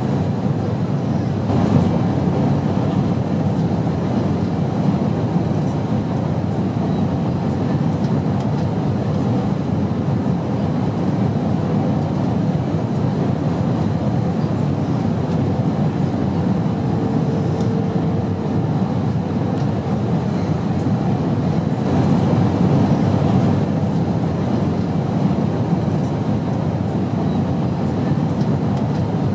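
Airplane cabin noise: a steady, even low rumble of engines and rushing air. A brief faint hum tone sounds a little past the middle.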